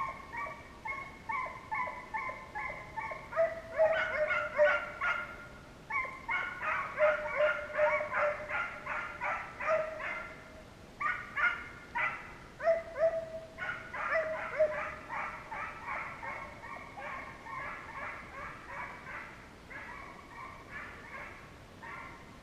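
A pack of deer-hunting hounds baying, with rapid, overlapping barks from several dogs at different pitches. It goes on without a break, is thickest in the first half and thins out near the end.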